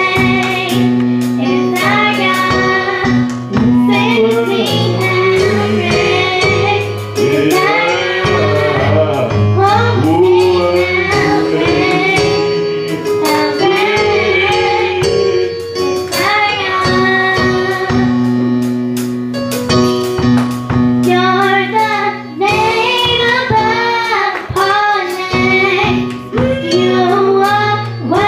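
Church choir with women's voices singing a gospel worship song over band accompaniment, with held low instrumental notes and regular percussion hits.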